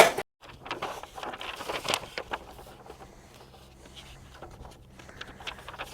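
Faint handling noises: small scrapes, rubs and light clicks with a low steady hum beneath.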